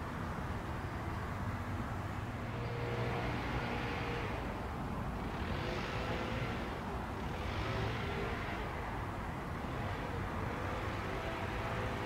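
Distant road traffic: a steady low rumble with a few vehicles swelling past and fading away.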